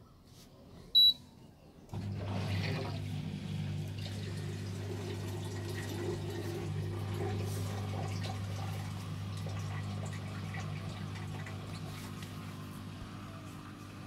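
A single short beep from the BPL dishwasher's control panel, then about two seconds in the dishwasher starts up: a steady pump hum with rushing water as its wash cycle begins.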